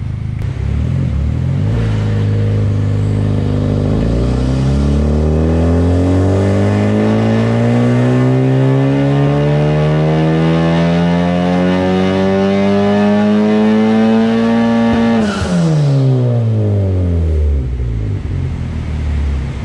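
Turbocharged Honda four-cylinder engine making a full-throttle dyno pull on E85. The revs climb steadily for about eleven seconds, then the throttle snaps shut with a short burst of noise, and the revs fall back to idle.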